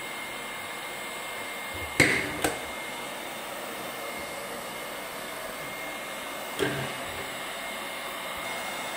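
Hot-air blower of an LC3000C hot air welding machine running with a steady hiss, heated to its set temperature of about 400 °C and ready to weld. A knock about two seconds in, another half a second later, and a fainter one near seven seconds.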